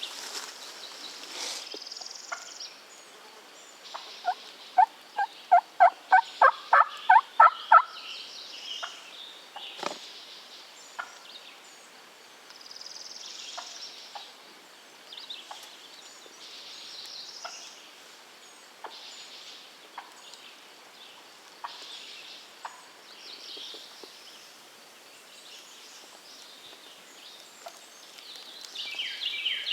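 A run of about ten loud turkey yelps, evenly spaced over roughly three seconds, starting about four seconds in. Small songbirds chirp throughout, and there is one sharp knock about ten seconds in.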